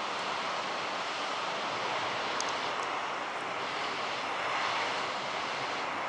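Steady rushing noise of big ocean waves breaking and churning whitewater, with no distinct events.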